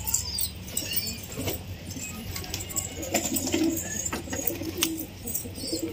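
A flock of domestic pigeons cooing, with low warbling calls strongest in the second half. High chirping and a few sharp clicks sound among them.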